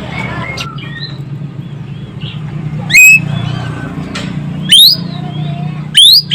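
Ekek keling songbird calling: three loud, short, sharply rising shrill calls spaced a second or two apart, with softer chirps in between, over a steady low hum.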